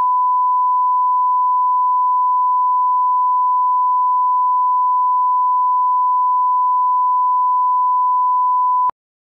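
A steady 1 kHz reference tone, the line-up tone that runs with colour bars at the head of a broadcast tape so audio levels can be set. It holds one unchanging pitch and cuts off abruptly near the end.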